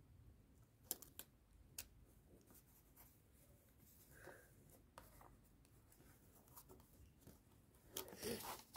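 Faint rubbing and rustling of fingertips pressing and smoothing a taped paper sticker down onto a notebook page, with a few soft clicks about a second in and a louder rustle of paper near the end.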